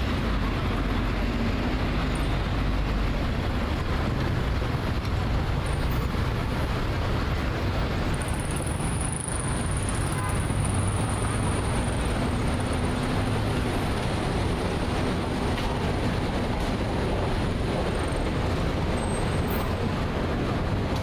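Steady hum of road traffic: a constant low rumble and noise with no distinct events.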